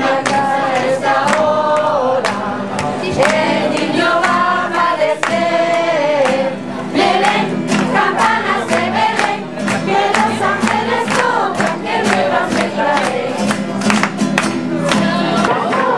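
A group of children and adults singing a Spanish Christmas carol together, with a steady beat of sharp percussive taps under the voices.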